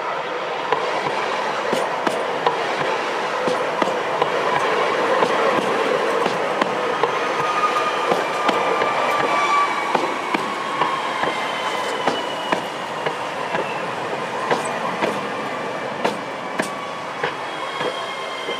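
Alstom Citadis Dualis electric tram-train rolling slowly into the station: steady wheel and rail noise, regular clicks of the wheels over rail joints that come further apart as it slows, and a thin whine falling in pitch as it brakes.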